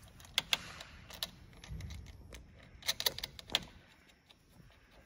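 Metal battery-cable ring terminals clinking on a battery's terminal post as they are fitted and fastened by hand: two sharp clicks about half a second in, a soft thump near two seconds, then a quick run of clicks around three seconds in.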